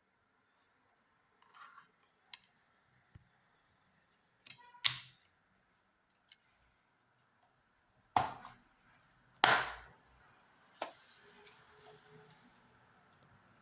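Plastic DVD cases being handled: a few faint clicks, then four sharp plastic snaps in the second half, the loudest about two thirds of the way through.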